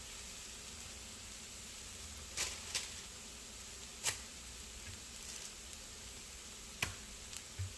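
Chicken pieces sizzling faintly in a hot frying pan just off the heat, a low steady hiss with about five sharp pops scattered through it.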